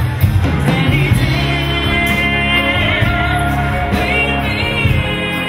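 Live band playing a pop song through a PA, with a woman singing lead in long, held notes.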